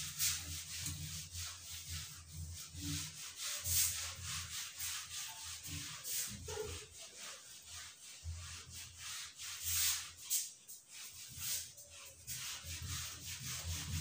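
Eraser rubbing across a whiteboard in a quick run of repeated wiping strokes, clearing marker writing off the board.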